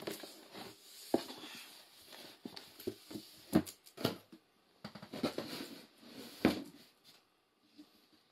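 Hands opening a cardboard gift box and its paper packing: irregular rustling with several sharp knocks and taps, the loudest about three and a half seconds in and again near six and a half seconds.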